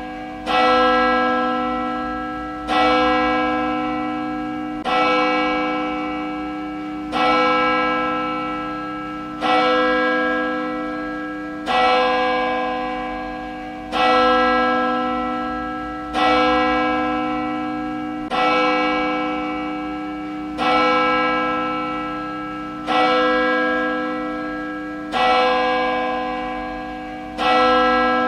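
A single church bell tolling steadily, struck about once every two seconds, about thirteen times. Each stroke rings on with a deep hum under brighter overtones and fades until the next.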